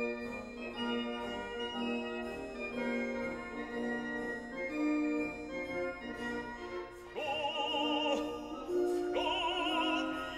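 Background music of held organ-like keyboard chords, joined about seven seconds in by an operatic singing voice with a wide vibrato.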